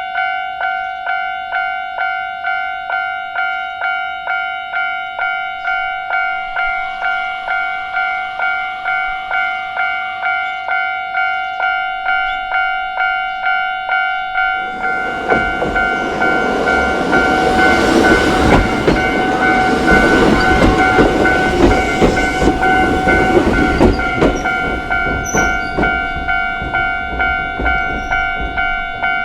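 Japanese level-crossing warning bell ringing steadily, about one and a half strokes a second. About halfway through, a Choshi Electric Railway train crosses, its wheels clattering over the rail joints; the passing is loudest a few seconds later, then eases as the bell rings on, and the bell cuts off near the end.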